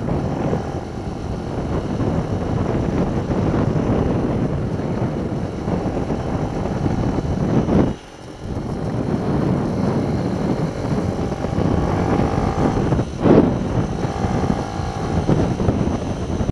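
Mini racing motorbike's engine running under way on a track, heard from a camera mounted on the bike, mixed with dense wind and road noise. The level drops briefly about halfway through.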